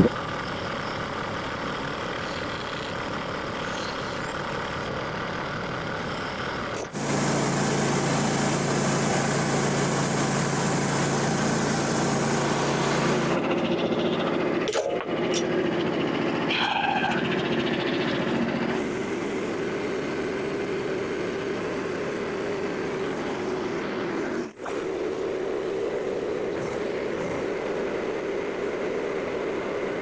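Portable band sawmill's small gasoline engine running steadily. It comes in several short stretches that change abruptly in pitch and loudness from one to the next.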